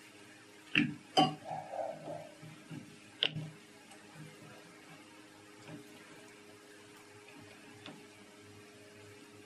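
Thick gram-flour batter being beaten by hand in a steel kadai to work out the lumps: soft wet squelching strokes about twice a second, fading in the later seconds. Three sharp knocks against the metal bowl in the first few seconds are the loudest sounds.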